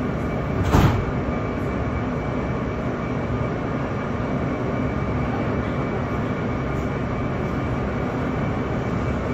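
R160B subway train running, heard from inside the car: a steady rumble of wheels on rail with a faint steady whine, and one sharp bang a little under a second in.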